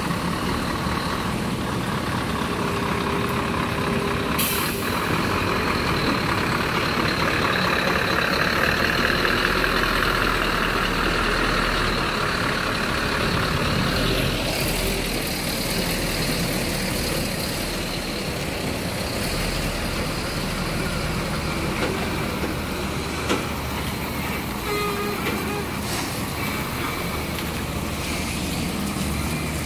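Scania heavy-haul truck pulling a long low-loader trailer slowly past, its diesel engine running loudest as the cab goes by, with a short hiss of air brakes about four seconds in.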